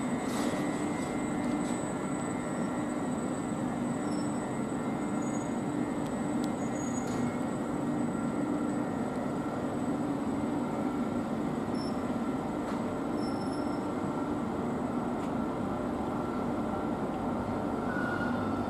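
SBB ETR 610 electric tilting train moving slowly away, its running gear and traction equipment giving a steady drone, with a faint thin whine that rises slightly near the end.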